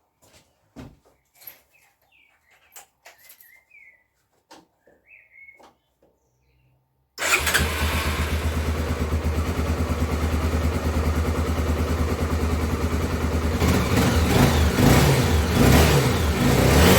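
Faint clicks and taps, then about seven seconds in a Honda CBF250's single-cylinder engine starts suddenly and runs steadily, its revs rising near the end. The new intake pipe has been fitted to cure a vacuum leak that made it run rough.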